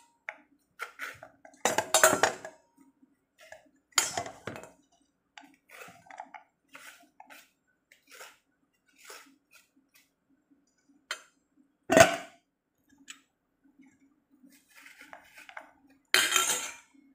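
Metal spoon scraping seeds out of a halved papaya and knocking against a stainless steel bowl: irregular scrapes and clinks, the loudest knock about twelve seconds in.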